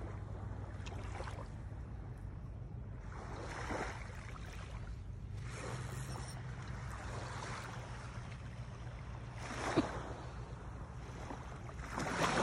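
Small waves washing up onto a sandy shore every few seconds, over a steady low rumble.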